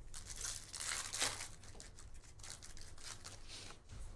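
Wrapper of a 2024 Topps Series 1 baseball card pack being torn open and crinkled, a run of scratchy rustling loudest about a second in.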